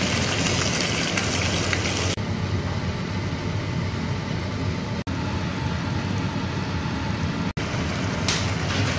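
Seasoning sauce sizzling and bubbling in a hot frying pan around pan-fried stuffed bitter melon. The sizzle is sharpest for about the first two seconds as the sauce hits the hot oil, then settles to a steady simmer, cut off twice for an instant.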